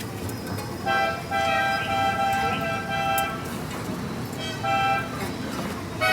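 Vehicle horn honking in street traffic: a short toot about a second in, a long blast of about two seconds, another short toot, and a new blast right at the end, over a steady traffic rumble.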